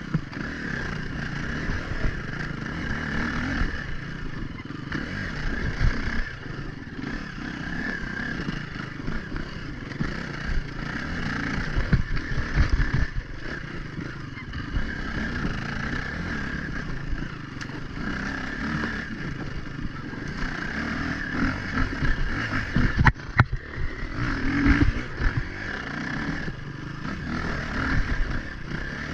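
Dirt bike engine running under load, revving up and down as the bike is ridden over rough ground, with rattling from the bike. There is a single sharp knock about three-quarters of the way through.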